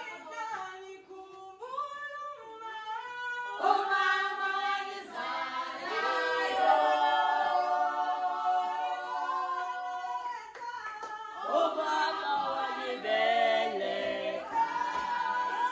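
A group of voices singing a cappella, in held notes that move together in harmony.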